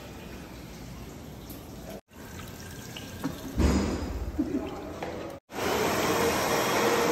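Water running from automatic sensor taps into a washroom basin and over a child's hands, heard in short cuts. About five and a half seconds in, a louder steady rushing noise with a faint hum takes over.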